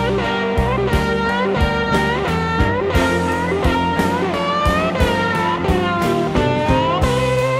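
Blues music: an electric guitar playing lead with bent notes over a steady beat.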